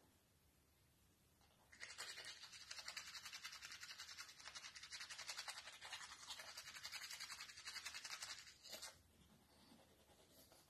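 Toothbrush scrubbing teeth in quick, continuous strokes, starting about two seconds in and stopping about nine seconds in, with one short last scrub at the end.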